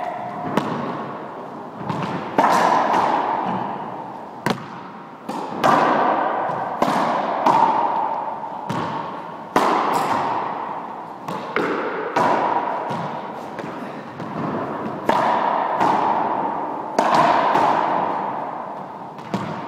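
Squash ball struck by racquets and hitting the court walls and floor: about a dozen sharp cracks at irregular intervals, each followed by a long echo ringing in the enclosed court.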